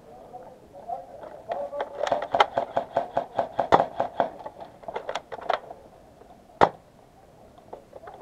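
Airsoft fire: a rapid, irregular string of sharp cracks and clicks for about four seconds, starting a second and a half in, then one more loud crack about a second later.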